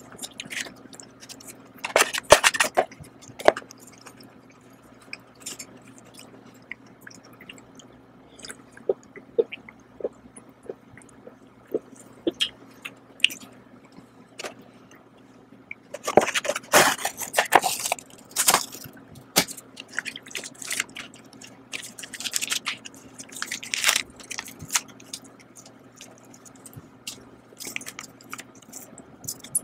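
Close-up eating sounds from a cup of instant noodles: chewing and mouth noises, with scattered clicks and rustles from handling the paper bowls and packaging. Louder noisy clusters come a couple of seconds in, around the middle and toward the end.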